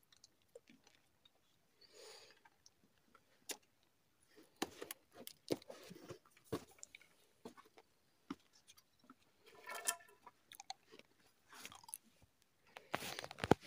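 Faint, irregular crunches and clicks of loose rocks and grit shifting and knocking underfoot and under the hands in a boulder pile.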